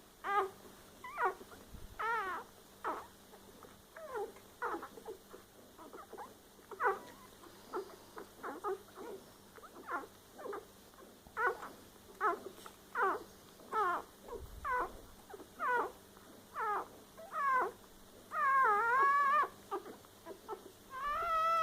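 Newborn Rottweiler puppies squeaking and whimpering: short, high, falling cries, about one a second, with two longer wavering cries near the end.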